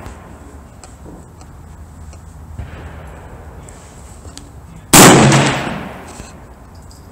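A single very loud rifle shot about five seconds in, its report echoing and dying away over about a second. The start holds the fading echo of an earlier shot.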